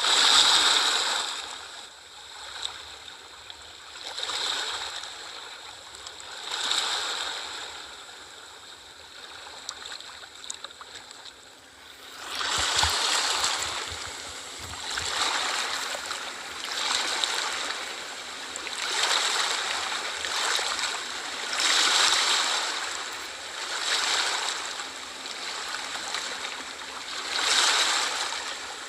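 Sea waves washing in and breaking, the surf swelling and ebbing every two seconds or so. About twelve seconds in, the wash grows louder and fuller.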